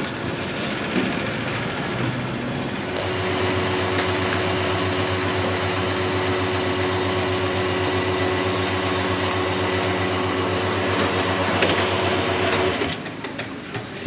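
Petrol pump at a fuel dispenser running while petrol is pumped into a scooter's tank: a steady mechanical hum that starts about three seconds in and cuts off shortly before the end.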